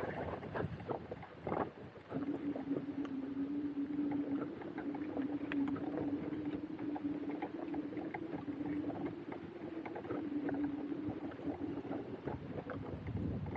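Vehicle riding over rough, uneven ground, with irregular rattling and clicking throughout. A steady low hum sets in about two seconds in and fades near the end.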